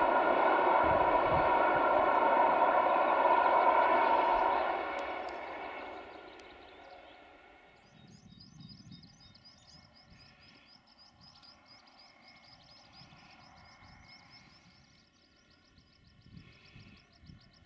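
Diesel-hauled freight train running, a steady drone of many held tones over rumble, fading away from about five seconds in. After that there are only faint low rumbles and a bird's rapid, high chirping.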